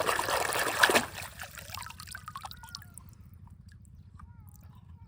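Water pouring and splashing, cutting off sharply about a second in, followed by a few fainter drips and trickles.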